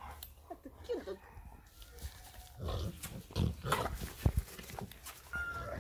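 Rottweiler grunting and growling in rough play as it is wrestled and rolled over, in a run of rough bursts in the middle, with one sharp thump just after four seconds.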